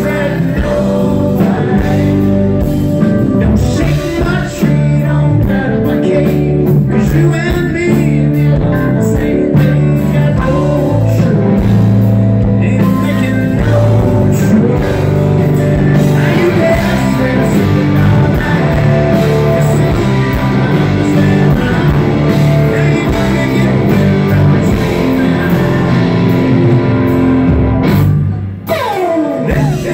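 A rock band playing live: electric guitars, bass and drums with a lead singer's voice. The music drops briefly a second or so before the end.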